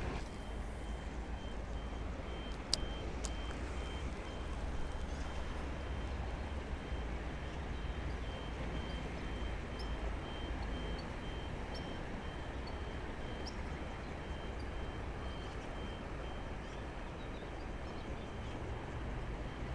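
Steady low rumble of distant traffic with a faint, high, evenly repeating reversing-alarm beep running through it. A single sharp click about three seconds in.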